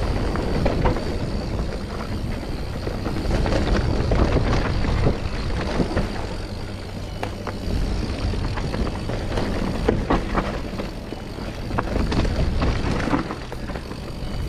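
Mountain bike ridden fast down a dirt woodland trail: wind rumbling on the microphone, tyres running over dirt and leaves, and the bike's chain and frame rattling over bumps, with many short clicks and knocks.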